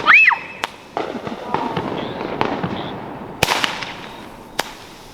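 Fireworks going off: sharp bangs about half a second in and again twice around three and a half to four and a half seconds, with crackling between them. The sound fades toward the end.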